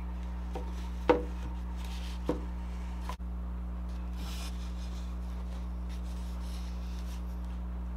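A wooden plank knocked down onto a table, sharply about a second in and more lightly a second later, then hands rubbing over the wood. A steady low hum lies under it all.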